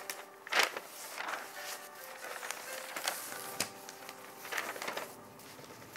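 Quiet background music with a few scattered light taps and clicks, the loudest a little after the start and another about three and a half seconds in.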